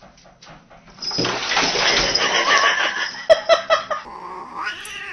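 Cats caterwauling: a loud, harsh stretch starts about a second in and lasts about three seconds, broken by a few sharp clicks, then a falling yowl near the end.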